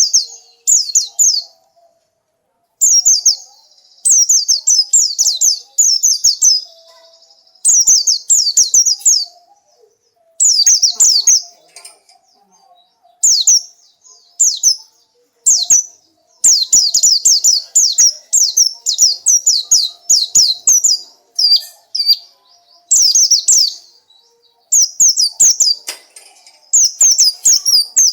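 Pleci (white-eye) singing: phrases of quick, high, downward-sweeping chirps, each lasting one to two seconds, repeated after short pauses.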